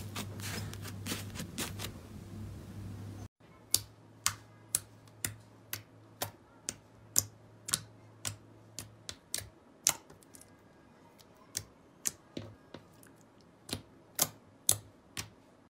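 Fingers pressing and poking clear slime, which gives off sharp clicking pops about two a second. Just before, a shorter stretch of denser crackling from textured slime being pressed breaks off suddenly.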